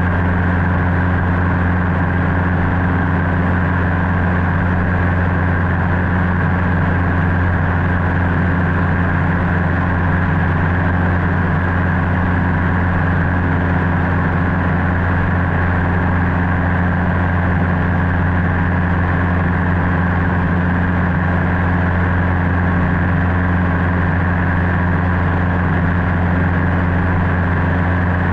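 Cessna 150's four-cylinder Continental O-200 engine and propeller drone at steady power, heard from inside the cabin, with no change in pitch or level.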